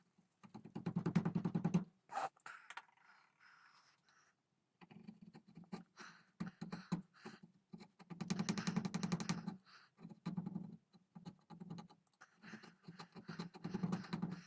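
Hand tool scraping and cutting into a wooden gunstock in several short bursts of rapid strokes, as wood is cleared for the trigger inlet.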